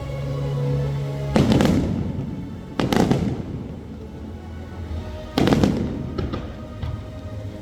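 Fireworks bursting overhead: three loud booms, about a second and a half in, near three seconds and past five seconds, followed by lighter crackling. Music plays steadily underneath.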